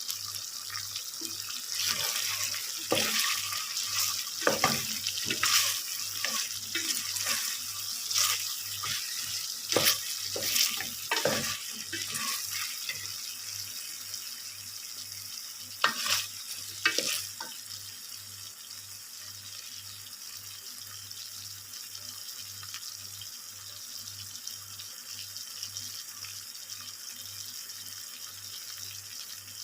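Pan of chicken-feet adobo sizzling with a steady hiss while a utensil clanks and scrapes against the pan for the first dozen seconds. Two sharp knocks come about 16 and 17 seconds in, then only the hiss is left.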